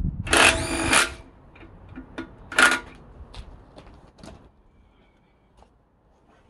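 Cordless drill motor whining in two short bursts, one just after the start and a shorter one about two and a half seconds in, followed by a few light clicks and knocks of metal handling.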